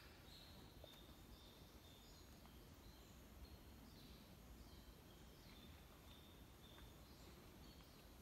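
Near silence: faint outdoor ambience with small birds calling, short high chirps repeated every second or so.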